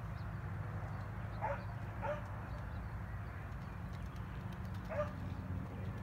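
Three short animal calls, two close together and a third about three seconds later, over a steady low rumble.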